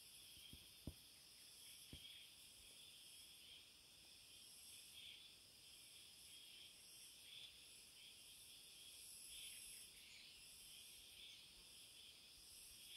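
Faint, steady high-pitched insect chorus, with a couple of soft taps about a second and two seconds in.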